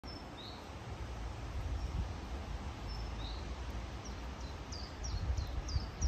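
Wind in bamboo leaves with a low, gusty rumble underneath, and a small bird chirping: a few short high calls in the first half, then quick repeated falling chirps, about three a second, from about four and a half seconds in.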